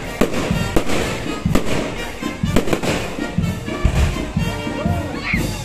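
Aerial fireworks bursting overhead in a series of sharp bangs, roughly one or two a second, with music playing underneath.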